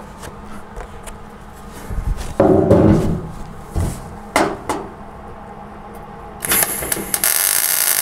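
A wooden board and tools knock and clatter against a truck cab's sheet metal as the board is pressed up under the patch panel. About six and a half seconds in, a MIG welder's arc strikes and crackles steadily as the patch panel is welded to the cab.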